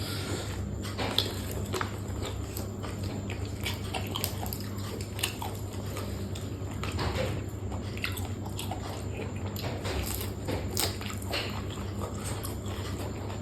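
Close-miked eating: chewing and biting, with many irregular crisp crunches, over a steady low hum.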